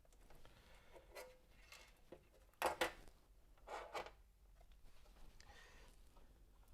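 Sharp RP-207 turntable mechanism being worked by hand: a series of light clicks and knocks, loudest a quick pair about two and a half seconds in and another pair a second later. The owner puts the noise down to the mechanism reaching its end stop.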